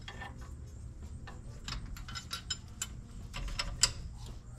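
Irregular small clicks and taps of hand-work at the engine's temperature sender as the wire connector is fitted onto it. One sharper click comes a little before the end.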